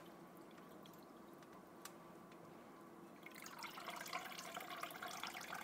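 Broth dripping and trickling out of a fine-mesh strainer full of scooped-out bones and vegetables. The dripping starts about halfway through and grows busier, after a quiet stretch broken by a couple of light clicks.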